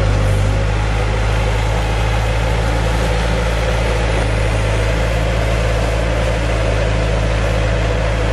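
A 2005 Bobcat S175 skid steer's diesel engine running steadily at an unchanging speed.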